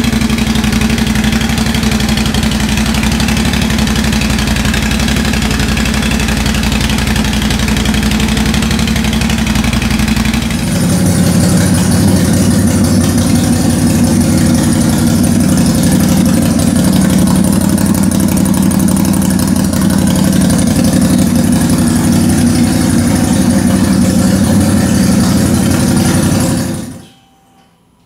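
Stock exhaust of a 2019 Can-Am Outlander 570 XMR ATV with its Rotax 570 V-twin running steadily. The tone changes about a third of the way through, and the sound drops away to near silence shortly before the end.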